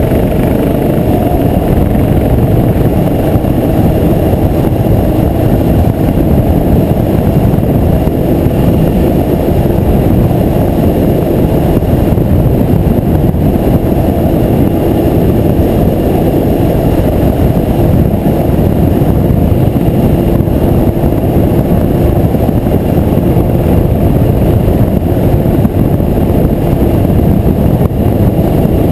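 Motorcycle riding at a steady speed, heard from a helmet-mounted camera: a loud, even rush of wind and engine noise with no changes.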